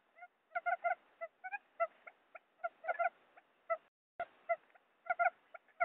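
Quail lure call (suara pikat puyuh): a series of short, clipped calls in quick clusters, with a brief break about two-thirds of the way through.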